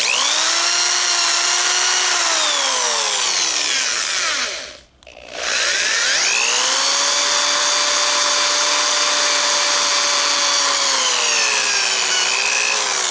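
Handheld power drill running in two long runs, its motor whine winding up, holding steady and winding down, while the bit cuts a slot into a soft PVC end cap clamped in a vise. The first run lasts about four and a half seconds; after a short stop the drill starts again and runs for about seven seconds.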